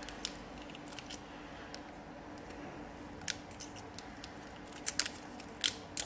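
Hand crimp tool working a small metal wire terminal: a few sharp metallic clicks and snips as the jaws close, several of them close together near the end, over a faint steady low hum.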